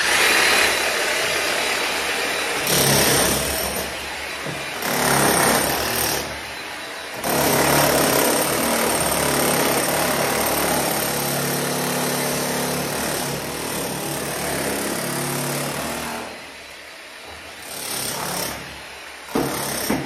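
Lightweight Hilti jackhammer hammering its chisel into a tiled masonry wall: a loud, rapid, continuous hammering. It lets up briefly about six seconds in, eases off later, and comes back in short bursts near the end.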